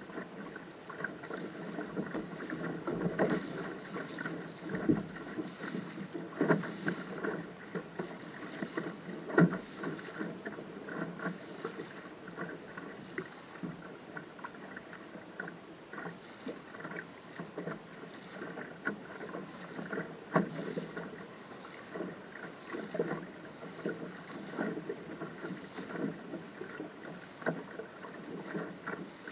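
Small waves slapping and lapping against the hull of a small sailing dinghy under way, a steady rush of water with frequent irregular knocks and splashes, a few of them louder.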